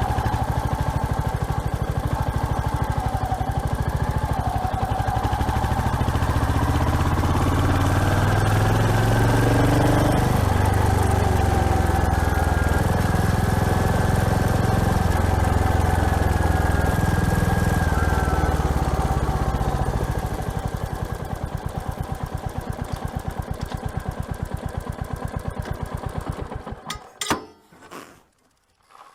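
Royal Enfield Hunter 350's single-cylinder engine running with a steady pulsing beat, pulling harder in the middle and easing off after that. It stops abruptly near the end, followed by a few short clicks.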